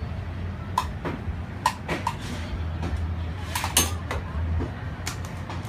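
Scattered light clinks and knocks as containers and a cup are handled on a stainless-steel ice cream roll counter, about five or six separate taps, over a steady low hum.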